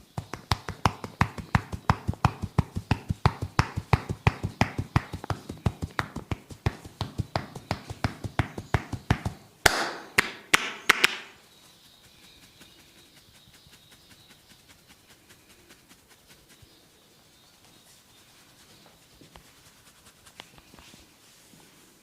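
Massage percussion: a barber's hands tapping and slapping the client in a fast, even rhythm, about four or five strikes a second. A few louder slaps close the run just before the halfway point, and then it stops.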